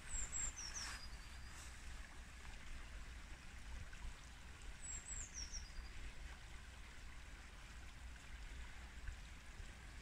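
Faint sound of a shallow stream running. A small bird sings a short phrase of high notes stepping downward, once near the start and again about halfway. A steady low rumble sits beneath.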